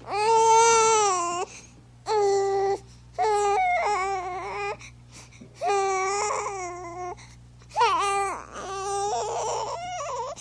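A baby crying: about six drawn-out cries in a row, each lasting up to about a second and a half, separated by short breaths.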